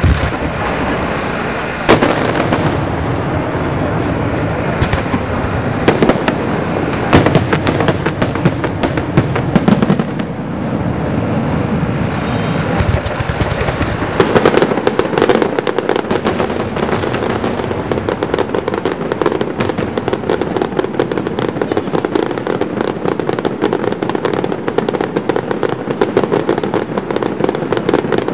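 Fireworks display: aerial shells bursting with sharp bangs over a steady noise of launches. About halfway through, this gives way to a dense, rapid crackling that keeps going.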